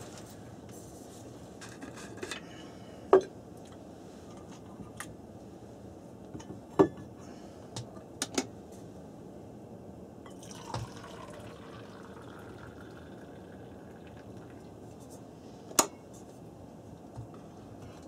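Firewood burning in a small stove: a steady low hiss broken by irregular sharp crackling pops, a few of them loud.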